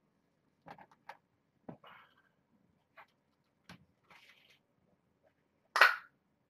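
Cat-food can being handled and opened: scattered light clicks and short scrapes, then one loud sharp crack-and-rip just before the end.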